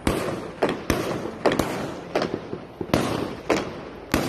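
Aerial fireworks going off: about nine sharp bangs at irregular spacing, roughly two a second, each fading out over a fraction of a second.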